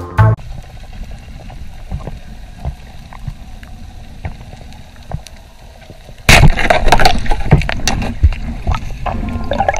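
Sound from an underwater camera: a quiet low rumble with scattered faint clicks, then about six seconds in, loud gurgling, bubbling water noise starts suddenly and keeps on. The reggae music cuts off right at the start.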